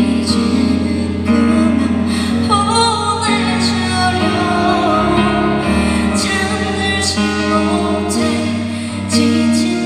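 A woman singing a melody into a handheld microphone over instrumental accompaniment with sustained low notes.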